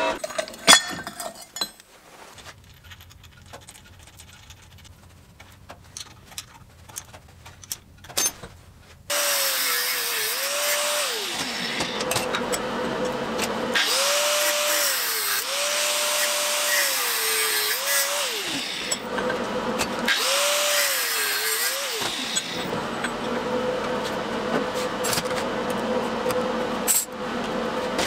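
A 125 mm angle grinder cutting through the end of a steel plate clamped in a vise. It starts about nine seconds in after a quieter stretch of scattered clicks, and its motor pitch sags under the load of the cut and recovers several times.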